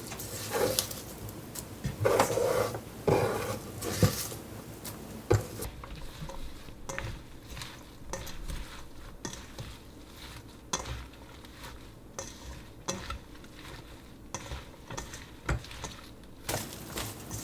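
Stirring and mixing in a bowl, a utensil clinking against the dish. There is a run of louder clatters in the first few seconds, then many small scattered clicks.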